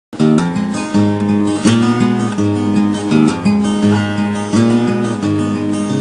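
Acoustic guitar music, with plucked notes changing every half second or so.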